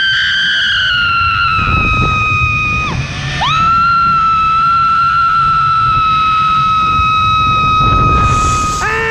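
A woman screaming as she rides a zip line: one long high scream that slowly sinks in pitch, a quick breath about three seconds in, then a second long, steady scream held almost to the end. Wind rumbles on the microphone underneath, and a lower-pitched voice cries out right at the end.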